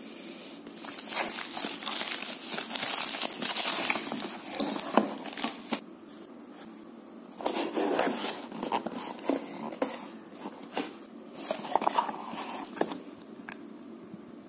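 Plastic mailer bag crinkling and tearing open, loudest in the first few seconds. Then come shorter bursts of rustling and scraping as a cardboard box and its paper contents are handled.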